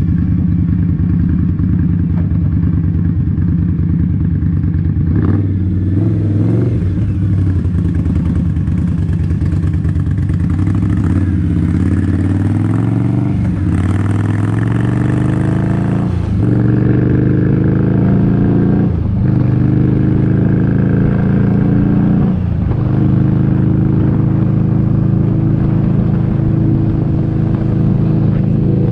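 Motorcycle engine pulling under way, its pitch climbing and then dropping at several upshifts through the gears, with a steady low rumble beneath.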